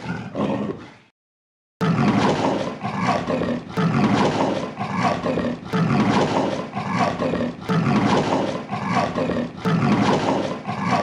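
Leopard calling: a run of rough, repeated grunting roars at an even pace, broken by a short silence about a second in and then starting again.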